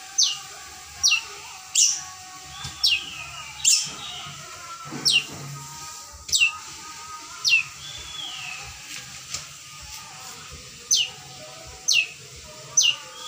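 Long-tailed shrike calling: a sharp, quickly falling whistled note repeated about a dozen times, roughly once a second, with softer warbling notes between. It is a caged shrike that had gone quiet starting to sing again.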